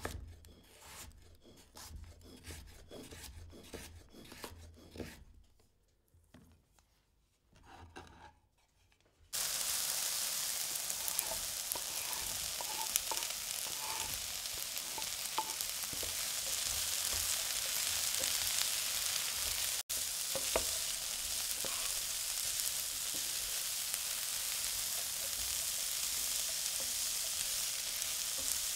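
A run of short, rhythmic strokes of vegetables being prepared, then a sudden switch to vegetables sizzling steadily in hot oil in a pan, with the light knocks of stirring.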